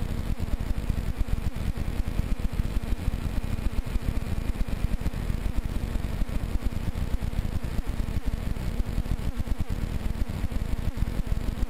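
Powered paraglider trike's engine and propeller running steadily in flight, with heavy wind buffeting on the microphone.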